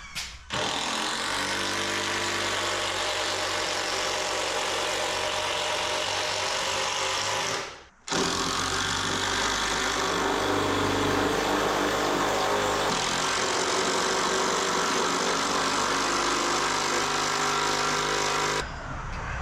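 Cordless power driver running under load as it sinks long square-drive construction screws into a timber beam. It runs in two long stretches with a brief break about eight seconds in.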